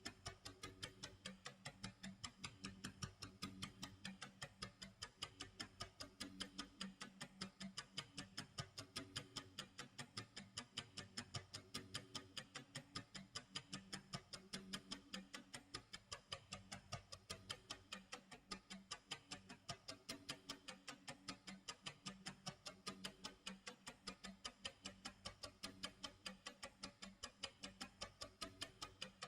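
Clock tick-tock sound effect: quiet, steady, evenly spaced ticking.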